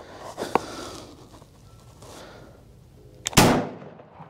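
A single shot from a 20-gauge shotgun firing a tungsten (TSS) turkey load, a loud sharp report about three seconds in that rings out briefly. A couple of small clicks come before it.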